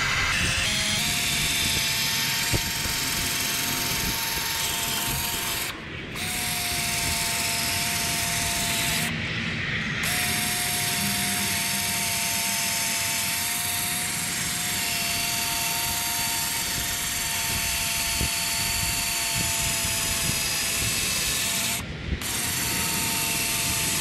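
Power drill spinning a 500-grit sanding disc pressed against a plastic headlight lens: a steady motor whine over a rough sanding rasp, broken by a few short pauses. This is the first, coarsest sanding stage that cuts off the hazed, yellowed surface of the lens.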